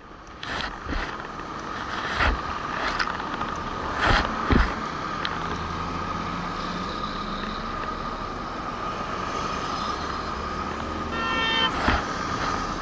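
Motorcycle riding through city traffic, its engine and the passing cars running steadily, with several short sharp knocks in the first few seconds. A vehicle horn sounds briefly near the end.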